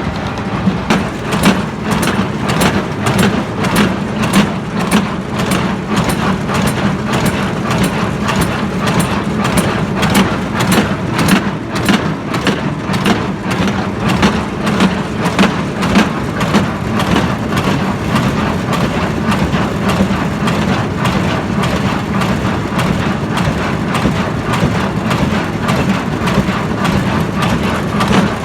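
Hay baler running behind a tractor, the engine and drive humming steadily under a regular knocking of about two strokes a second.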